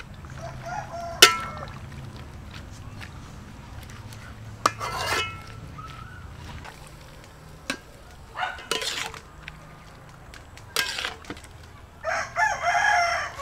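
Chickens around the cooking fire: short clucks early on and a rooster crowing for about a second and a half near the end. Sharp metal clinks of a ladle knocking the aluminium wok, the loudest a little over a second in.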